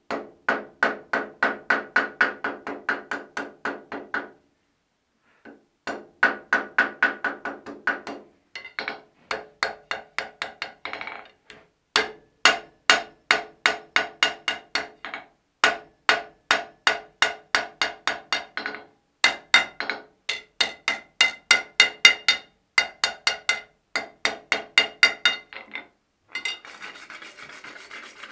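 Blacksmith's hand hammer striking red-hot iron on an anvil while forging a strap hinge. The blows come in quick, even runs of about three a second, each ringing, with short pauses between runs. A short scraping sound comes near the end.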